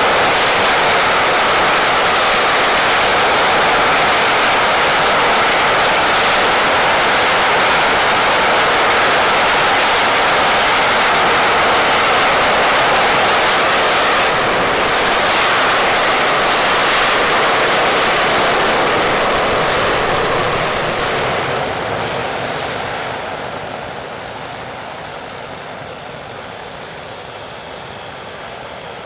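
English Electric Lightning's Rolls-Royce Avon turbojet running at high power with reheat lit on the upper engine: a loud, steady jet noise. About three-quarters of the way through it winds down to a lower, steadier idle.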